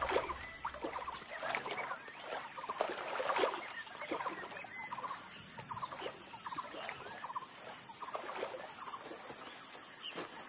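Overlapping chattering animal calls: short, rapid trills repeating every second or so, with no one call standing out.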